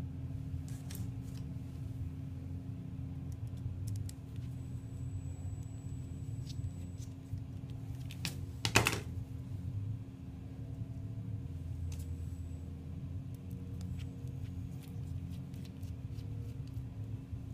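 Light clicks and taps of small metal tattoo-machine parts and a small hex tool being handled, with a short louder clatter a little past the middle, over a steady low hum.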